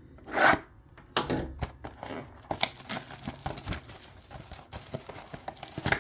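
Trading-card box packaging being torn open and handled: a loud rip about half a second in, then rustling, scraping and light taps of cardboard and wrapper.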